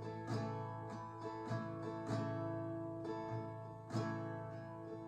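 Acoustic guitar strumming and picking slow chords as a worship-song accompaniment between sung lines, with a fuller strum every couple of seconds.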